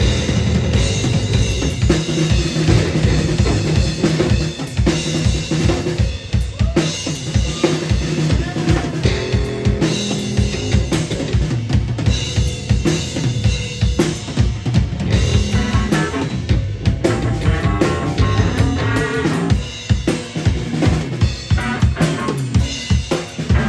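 Rock band music with the drum kit loudest: rapid, dense bass-drum hits and snare strikes under sustained pitched instruments.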